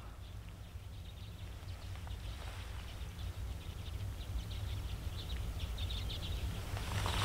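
Quiet outdoor stillness: a low steady wind rumble on the microphone, with faint light rustling ticks through the middle, slowly growing a little louder.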